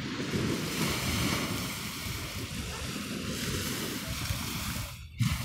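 Small waves washing onto a sandy beach, mixed with wind buffeting the microphone. A brief low thump comes just before the end.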